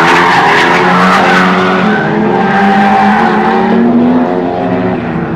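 Drifting car's engine running hard at high revs, its pitch shifting, with tyre screech from the slide that fades out about two seconds in. The engine note carries on and grows quieter near the end.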